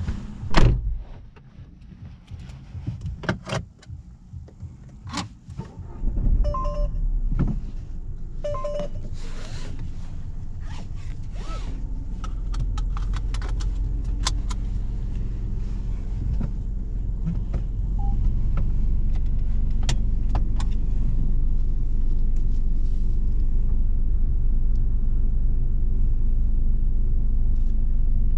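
A car door shuts with a loud thud about half a second in, followed by small clicks. About six seconds in the C3 Aircross's 1.2-litre three-cylinder turbo petrol engine starts and settles into a steady idle, with two short beeps soon after and scattered clicks from the controls.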